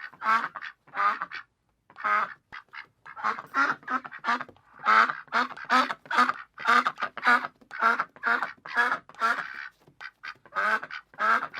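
Duck quacking over and over: a long run of short, nasal quacks, about two a second, in loose groups with brief pauses.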